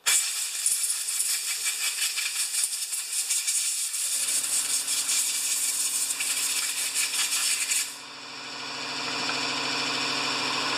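Compressed air from a blow gun hissing hard as it blows grime off a small-engine carburetor; the blast stops about eight seconds in. About four seconds in, the shop air compressor kicks on, its motor running with a steady hum that carries on after the air stops.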